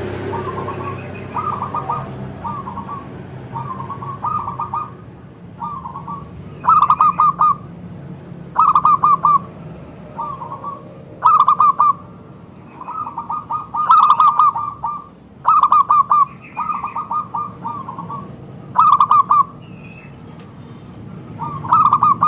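Zebra dove (perkutut) calling: a run of short, rapid, staccato cooing phrases, repeated every second or two, with some phrases much louder than others.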